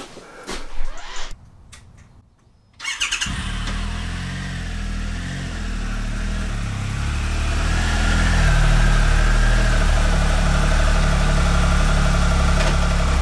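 Triumph Explorer's three-cylinder engine started about three seconds in, catching almost at once, then idling steadily and getting louder from about eight seconds in.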